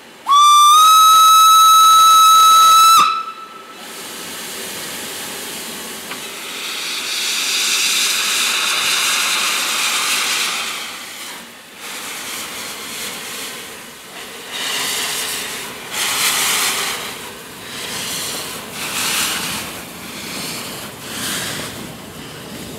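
Steam whistle of Isle of Man Railway No. 4 'Loch', an 1874 Beyer, Peacock tank locomotive, sounding one loud blast of about three seconds that cuts off sharply. Then steam hisses from its open cylinder drain cocks, followed by irregular exhaust puffs as the engine starts away.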